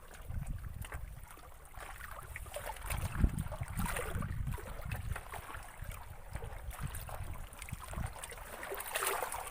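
Water lapping and sloshing, with wind gusting on the microphone as a low, uneven rumble and a few small knocks.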